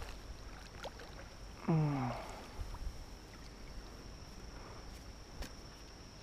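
A landing net lifting a fish out of pond water with a short splash about two seconds in, together with a brief grunt that falls in pitch. A cricket keeps up a steady high chirring throughout, with a few light knocks.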